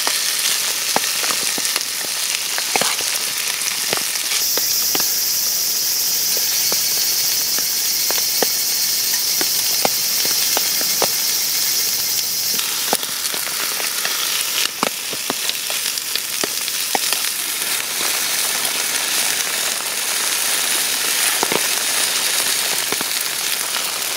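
Chicken frying in a pan on a camp stove: a steady sizzle with frequent sharp pops and crackles of spitting fat.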